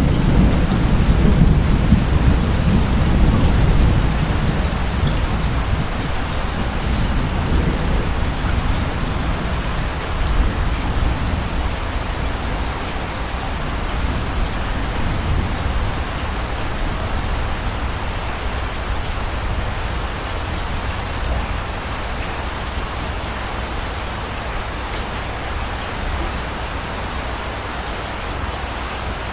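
Steady rain hissing, with a low rumble of distant thunder that fades over the first few seconds. The rain carries on, slowly easing.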